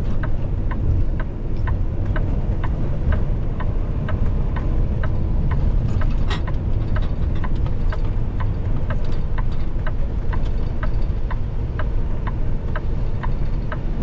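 Steady engine and road rumble inside a semi-truck's cab while driving, with a regular light ticking about twice a second.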